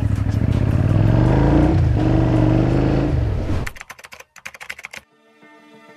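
Motorcycle engine running as the bike is ridden, its pitch rising and falling with the throttle, which cuts off suddenly about three and a half seconds in. A quick run of keyboard typing clicks follows, then faint music begins near the end.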